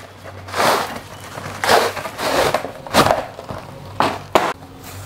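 A cardboard fireworks box being opened and handled by hand: a series of short scraping, rustling bursts of card against card and against a wooden surface, with a sharp snap about three seconds in.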